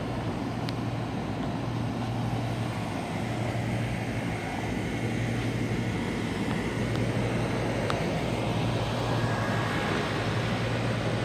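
York rooftop packaged air-conditioning units running: a steady rush of condenser fan air over an even low hum.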